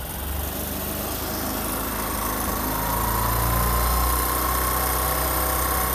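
Bajaj Discover 125's single-cylinder four-stroke engine running, its revs climbing gradually over the first few seconds and then holding steady, as the engine is held at raised revs for carburetor air-screw adjustment.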